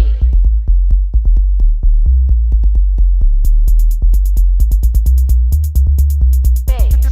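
Electronic bass music: deep sustained sub-bass under a fast drum-machine beat, with the hi-hats dropping out for a few seconds and coming back, and a pitch-bent vocal sample near the end.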